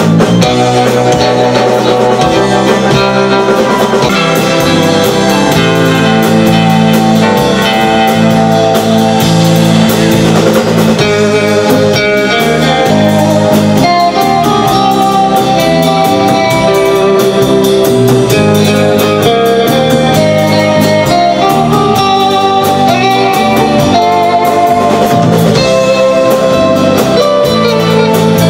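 A live rautalanka band plays an instrumental: electric guitars carry the melody over a drum kit, at a steady loud level throughout.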